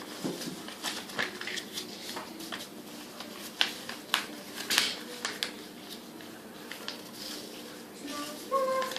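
Sheet of paper being folded and pressed flat by hand: scattered crinkles and rustles, with a few sharper crackles in the middle.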